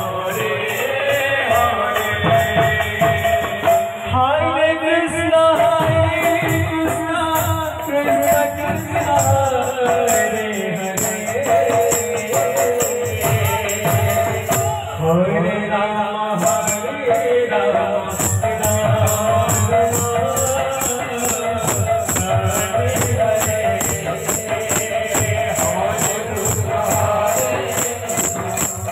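Odia devotional kirtan music: a male voice chanting a devotional song through a microphone and PA, over hand cymbals jingling in a steady rhythm and a drum beating below.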